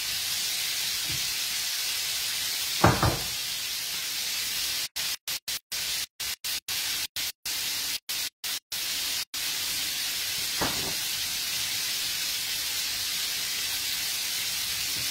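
Steady hiss of food sizzling in frying pans on a gas stove. There is a sharp knock about three seconds in and a softer one near eleven seconds. Between about five and nine seconds the sound cuts out repeatedly in brief gaps.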